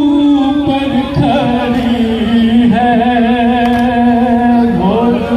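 A man singing a noha, a Muharram lament, into a microphone. He draws out long held notes, with a slide in pitch near the end.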